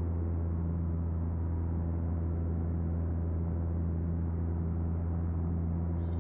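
Decathlon's four-cylinder Lycoming engine and propeller droning steadily in flight, a low, unchanging hum.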